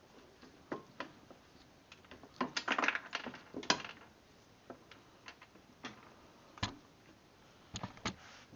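Irregular light clicks and knocks, like small metal parts and tools being handled. There is a cluster of clatter about two and a half to four seconds in, and a few sharper single knocks near the end.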